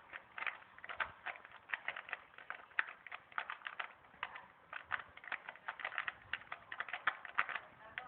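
A 3x3x3 Rubik's cube being turned rapidly during a timed speed-solve: the plastic layers clicking and clacking in quick, irregular runs, several clicks a second.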